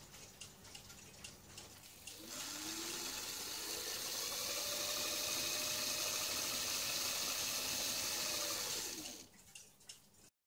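Electric motors of a model V 200 locomotive, fitted with two motors, whining under power as the voltage is turned up: a tone rising in pitch and then holding, over a steady hiss, while the locomotive pulls against a scale to measure its tractive force. The hiss and whine fade out near the end as the power is turned down, after a few light clicks in the first two seconds.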